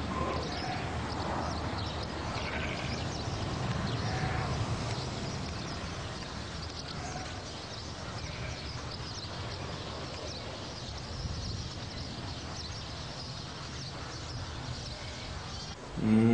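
Rural outdoor ambience: a steady background hiss with scattered faint bird chirps and animal calls.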